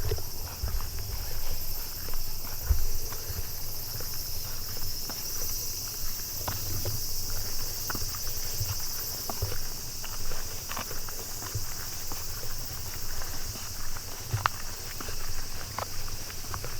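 Footsteps of a person walking, irregular soft thuds and scuffs, over a steady high-pitched insect chorus.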